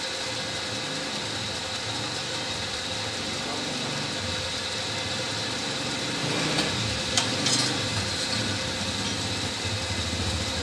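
Steady hum of a running motor, with a few short knocks about two-thirds of the way through.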